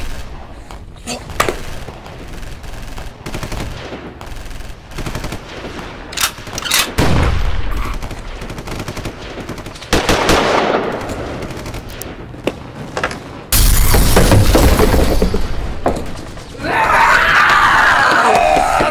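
Gunfire sound effects for a finger-gun shootout: many separate sharp shots, with a sudden loud burst with heavy low end about two-thirds of the way through. A long loud dense stretch of noise follows near the end.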